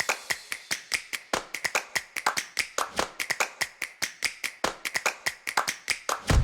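Percussion in background music: a quick, steady run of sharp clicks and taps, about seven a second.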